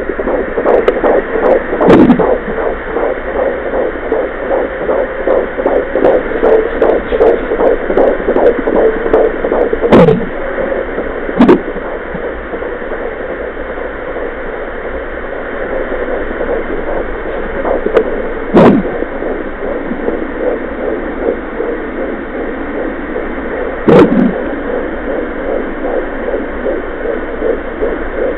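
Fetal Doppler speaker playing a 14-week fetus's heartbeat: a fast, rhythmic whooshing pulse over a steady hiss, strongest in the first half and again near the end. A few loud single thumps break in, five in all.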